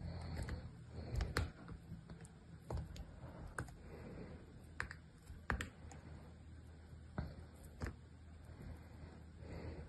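Small knife cutting into a block of dry, crunchy soap, brittle pieces and shavings cracking off the blade as irregular sharp clicks, about a dozen over several seconds.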